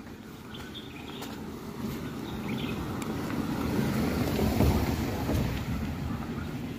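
An SUV driving slowly past on a dirt road. Its sound swells, is loudest about four to five seconds in as it goes by, then fades.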